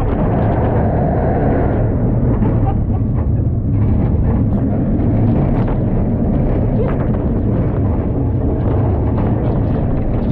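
Water coaster boat running along its track, a loud steady rumble with a broad rushing noise over it.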